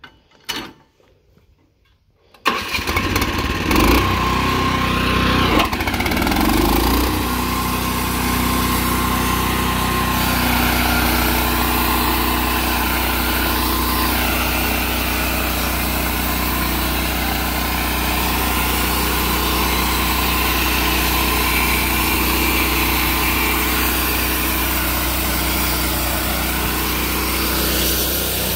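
Small gasoline engine on a portable band sawmill starting up about two and a half seconds in, shifting in pitch as it revs for a few seconds, then running steadily.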